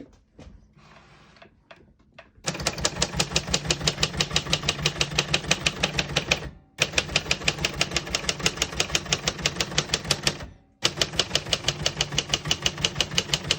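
1963 Royal Safari manual portable typewriter being typed on: fast, even runs of keystrokes, the typebars striking the paper. They start a couple of seconds in and pause briefly twice. None of the keys skip or stick.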